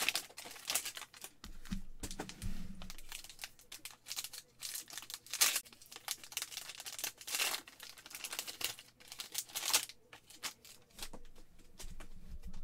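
The wrapper of a hanger pack of basketball trading cards crinkling and tearing as it is ripped open by hand, in irregular crackles. Near the end the cards are handled with light clicks and rubbing.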